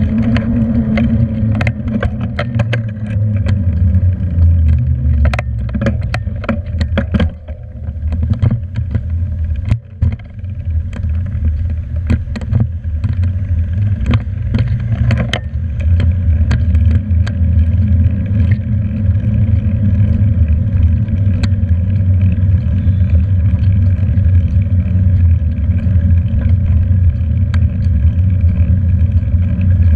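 Wind buffeting the microphone of a handlebar-mounted camera on a moving bicycle, a steady low rumble, with sharp clicks and rattles from the bike and mount going over bumps, most of them in the first half.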